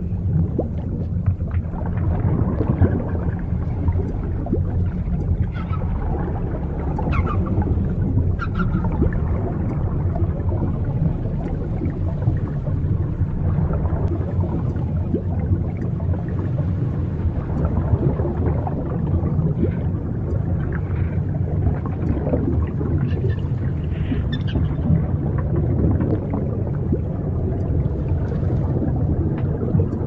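Underwater ambience with a steady low rumble of water. Short dolphin whistles and squeaks come now and then, a cluster about six to nine seconds in and more around twenty to twenty-five seconds.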